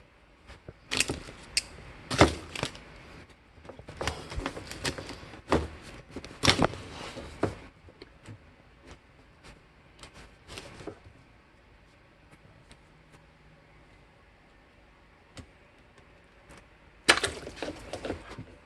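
Clicks, knocks and scrapes of plastic parts being worked loose and handled as the exhaust section is pulled off a Kenmore water softener's control valve. The noises are busy for about the first eleven seconds, then it goes mostly quiet before another short burst of handling near the end.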